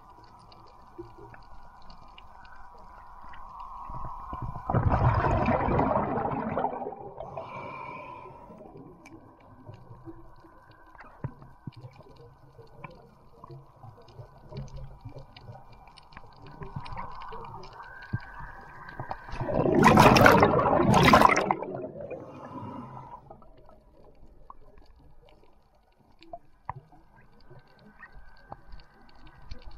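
Underwater sound of a diver exhaling: two gushes of air bubbles past the microphone, about fifteen seconds apart and each about two seconds long, over a faint steady tone and scattered small clicks.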